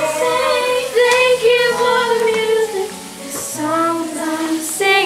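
A young female voice singing, holding long notes that bend slowly in pitch.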